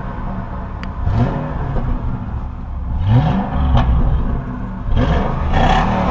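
A 2003 Ford Crown Victoria's V8 is blipped from idle about three times, each rev rising and falling back, over a steady exhaust rumble. The exhaust sound is called 'pretty mean'.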